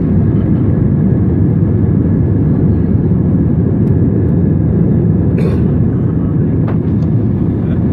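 Airliner jet engines at take-off power: a loud, steady low rumble with no change in pitch. Two faint brief clicks come through near the end.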